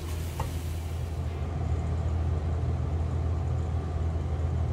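Steady low rumbling hum with a faint hiss over it; the hiss drops away about a second in.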